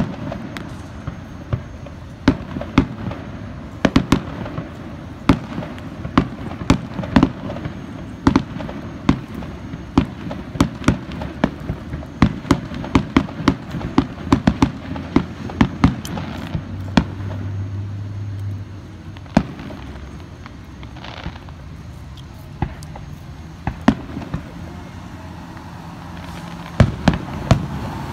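Aerial firework shells bursting in a long series of sharp bangs, coming fast and close together through the middle stretch, then more spaced out toward the end.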